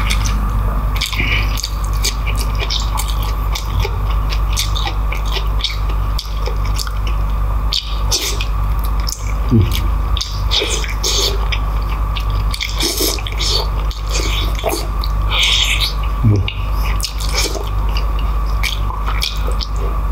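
Close-miked wet eating sounds: chewing, lip-smacking and sticky, squishy mouth noises on sauce-coated oxtail and beef tripe, coming irregularly over a steady low hum.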